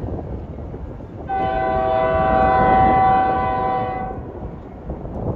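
Union Pacific freight locomotive's air horn sounding one steady blast of about three seconds, starting a little over a second in, for the street crossing ahead of it. Wind buffets the microphone throughout.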